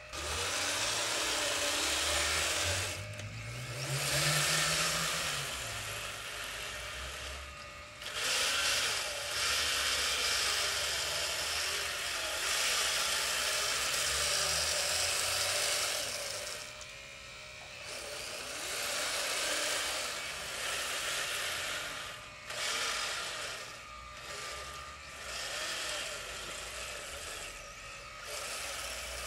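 Electric motors of a radio-controlled scale-model Volvo wheel loader whining as it drives and works its bucket in wet mud. The whine cuts out briefly several times and swells up and down in pitch, most clearly a few seconds in.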